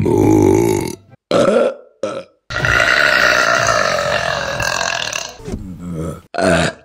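Women burping, one clip after another: a burp in the first second, a short one just after, then one long drawn-out burp lasting about three seconds, and another short burp near the end.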